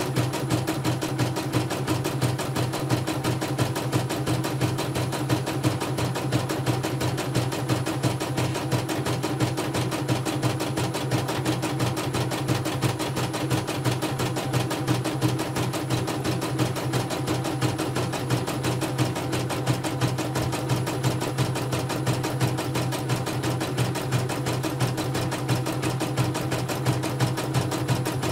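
CNY portable embroidery machine stitching out a design, with rapid, even needle strokes over a steady motor hum. It is a test run after its inner rotary hook, bobbin case, presser foot and tension spring were replaced.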